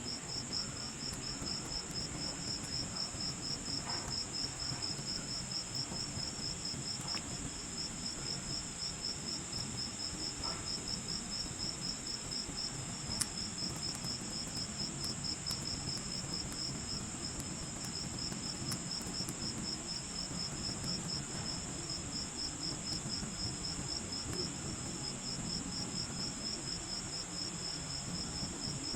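Insects chirping steadily in a chorus: an even, rapid pulse of high chirps, about two to three a second, over a continuous higher trill.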